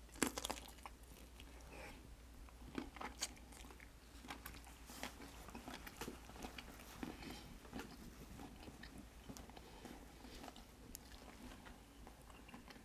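A person biting and chewing food close to the microphone: a sharp crunchy bite right at the start, then faint chewing with scattered small crunches and clicks.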